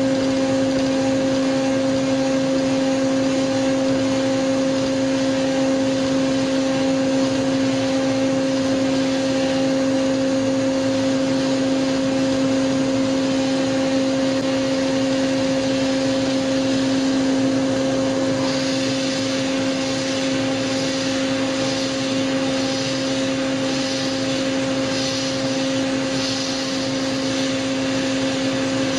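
CNC milling machine cutting a metal part with a small end mill: a steady pitched whine over a cutting hiss. About two-thirds of the way through, the hiss turns harsher and fluttering.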